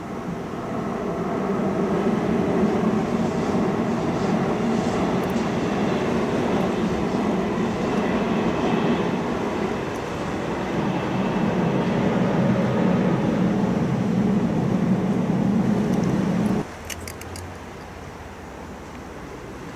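Z 23500 (TER 2N PG) double-deck electric multiple unit passing, a steady rumble of wheels on rail. It swells over the first couple of seconds and cuts off suddenly about three seconds before the end.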